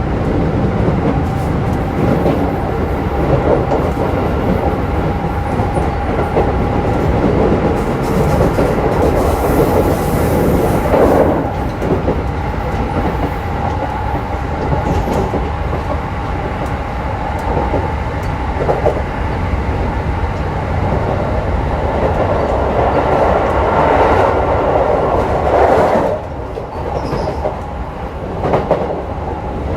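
Keikyu New 1000 series (1890 subseries) motor car Deha 1894-1, with a Toyo hybrid SiC VVVF inverter, running on the line, heard from inside the car. Wheels rumble on the rails and clack over rail joints under a steady drive tone, and the sound drops off briefly near the end.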